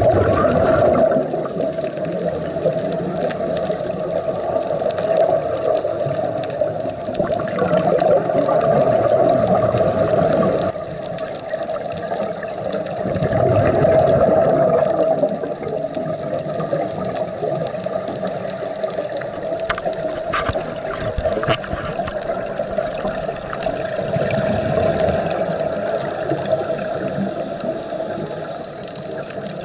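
Scuba regulator breathing recorded underwater: exhaled bubbles gurgling in swells every several seconds, over a steady hum.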